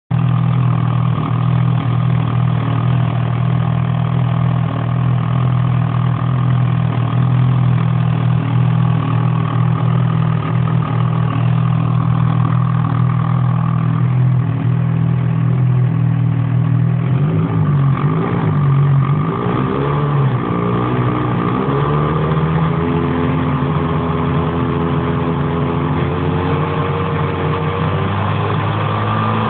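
800 E-TEC two-stroke engine running warm at a steady idle, then blipped up and down several times about two-thirds of the way through and settling at a faster steady speed. The owner suspects its noise may be piston slap.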